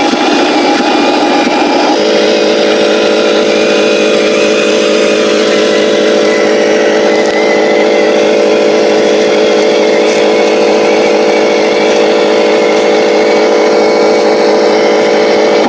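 Heavy truck engine sound, a steady drone that changes abruptly about two seconds in to an even, unwavering engine hum.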